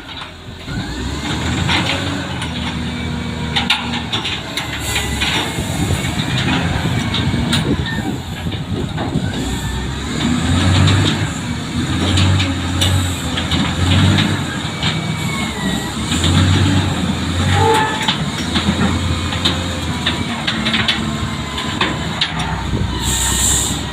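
Heavy diesel machine engine running, its low drone swelling and easing, with frequent metallic knocks and clanks and a short hiss of air near the end.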